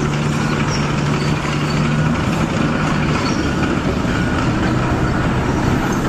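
Excavator engine running steadily, a constant rumble with a low hum.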